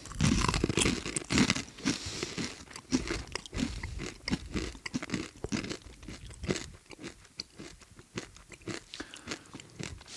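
Close-up crunching and chewing of a hard, crisp breaded snack: a run of irregular crunches, loudest and densest in the first couple of seconds, then thinning out into sparser bites.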